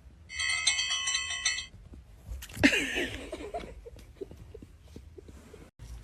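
A bright bell-like ringing trill, pulsing rapidly for about a second and a half. A short gliding cry follows about a second later.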